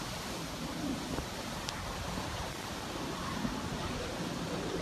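Hurricane-force wind and driving rain, a steady, even rush.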